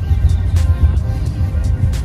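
Low, uneven road rumble inside a moving vehicle's cabin, with music faint underneath.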